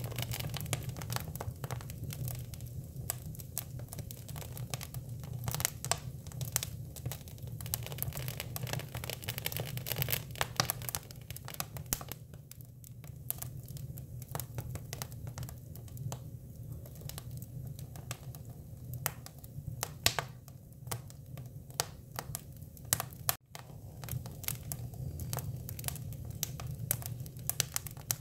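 Hinoki cypress wood burning, crackling with frequent irregular sharp pops over a steady low hum.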